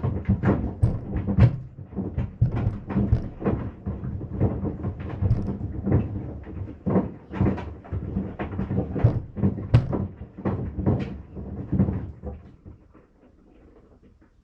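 Sandals tumbling in a Maytag washing machine, knocking and thudding irregularly against the drum several times a second. The knocking dies away about twelve seconds in, leaving only a faint low hum.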